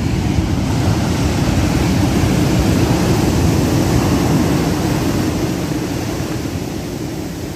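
Storm surf breaking and churning along the shore: a steady, deep rush of waves that builds about a second in and eases off near the end.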